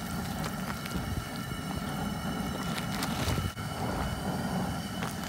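A big pot of crawfish at a rolling boil over a lit burner: a steady low rumble of the flame and the bubbling water, with a few small scattered clicks.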